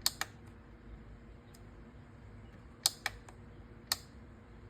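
Small sharp clicks and taps from handling a ratchet and a digital scale: a pair at the start, three quick ones about three seconds in and one more a second later, over a faint steady hum.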